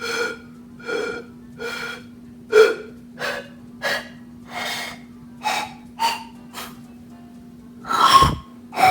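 Pan flute blown in short, breathy puffs, about a dozen separate notes, the pitch stepping higher toward the end, over a faint steady hum.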